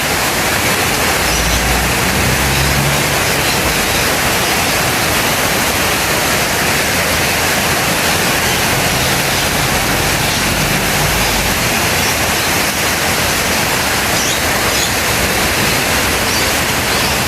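Heavy downpour of rain mixed with hail, a dense steady hiss with faint scattered ticks. A low rumble comes and goes twice.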